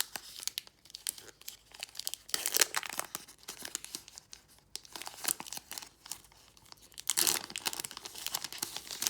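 Foil booster pack wrapper being torn open and crinkled by hand, with sharp crackles and two louder bursts of crinkling, about two and a half seconds in and again about seven seconds in.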